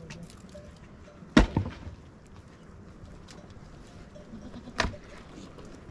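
Two sharp knocks about three and a half seconds apart, the first followed at once by a smaller second knock, over faint outdoor background.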